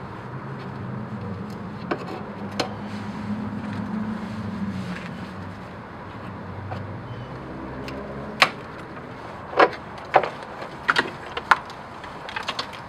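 Short squirts of engine degreaser from a spray nozzle onto the engine bay, about six sharp bursts in the last five seconds. Before them a low engine hum, as of a passing vehicle, swells and fades.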